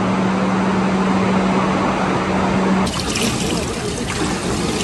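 Echoing water-park pool-hall noise with a steady low hum, then about three seconds in an abrupt change to the hiss and bubbling of churning water in an outdoor pool.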